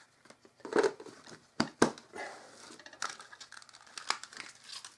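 Hands handling gear in the pockets of a waxed canvas haversack: rustling fabric with a few sharp knocks and clicks, the loudest about a second in and twice just before two seconds.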